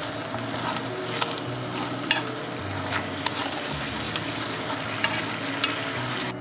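Kabocha pumpkin pieces sizzling in a frying pan of hot sauce, stirred and turned with wooden chopsticks, which tap against the pan a few times.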